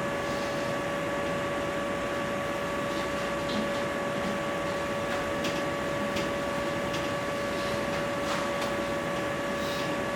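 Steady hiss with a constant electrical whine at several pitches, and a few faint scattered ticks.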